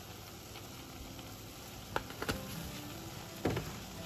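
Seasoning shaken from a spice container over chicken chunks in a hot non-stick skillet, with a few sharp taps or clicks about halfway through and near the end, over a faint steady sizzle.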